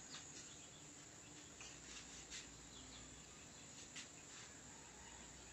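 Near silence: a faint, steady high-pitched insect drone, with a few faint clicks.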